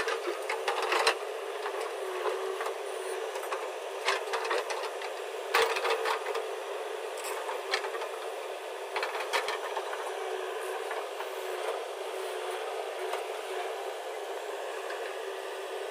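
Backhoe loader's engine running steadily, with a handful of sharp knocks and rattles near the start and about four, five and a half, and nine seconds in.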